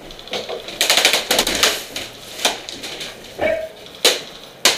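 Airsoft guns firing in rapid clattering bursts: a long burst about a second in, a short one a little later, and two sharp cracks near the end.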